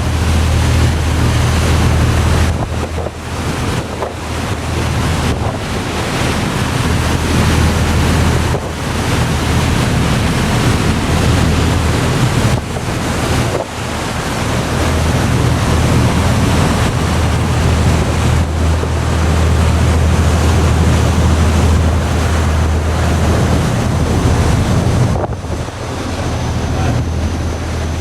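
Passenger ferry's engines droning steadily under a loud rush of wind and water, with wind buffeting the microphone.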